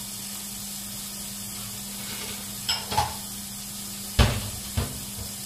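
Diced bacon sizzling in olive oil in a frying pan, a steady hiss. A few short knocks of kitchen clatter come around the middle and toward the end, the loudest about four seconds in.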